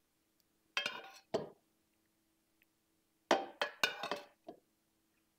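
Metal ladle clinking against the pot of meat sauce as sauce is scooped out: two or three clinks about a second in, then a quicker run of clinks around three to four seconds in.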